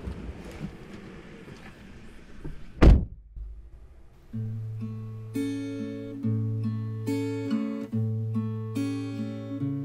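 Rustling inside a car, then a single loud thunk about three seconds in. From about four seconds in, acoustic guitar music plays: picked chords repeating in a steady rhythm.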